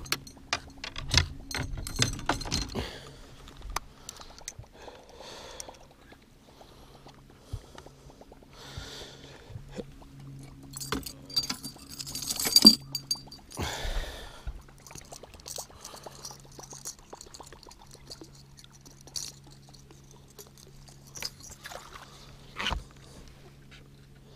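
Fishing tackle handled on a boat deck: scattered clicks and clinks of lures, hooks and rods knocking together, over a faint steady low hum, with a louder clatter about halfway through.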